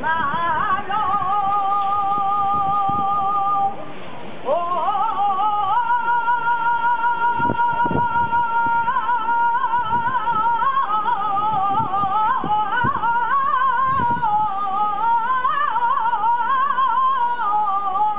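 A man singing a saeta solo and unaccompanied, in long held notes that waver in ornamented flamenco runs, with a short breath break about four seconds in.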